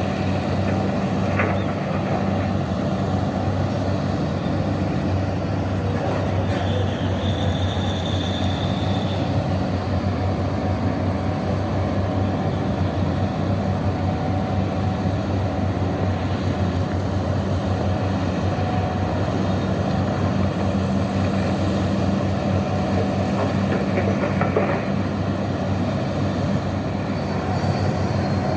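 Large mining excavator's diesel engine running with a steady low hum, with a brief high-pitched squeal about eight seconds in.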